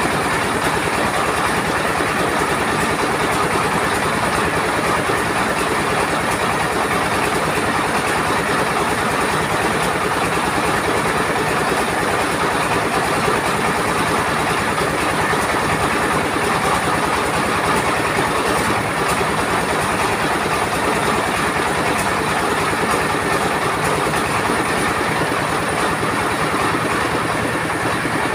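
Trailer-mounted rice mill running steadily: a stationary engine with a fast even pulse drives belt-driven husking and polishing machines, with the clatter of the milling machinery mixed in.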